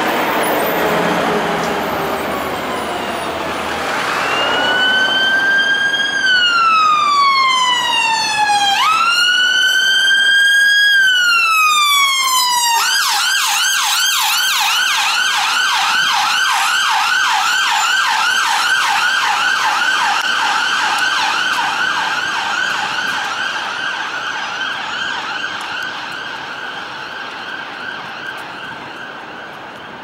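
Road traffic for the first few seconds, then a Peugeot Boxer emergency ambulance's siren comes in: a slow wail rising and falling twice, switching about 13 seconds in to a rapid yelp that carries on and slowly grows fainter toward the end.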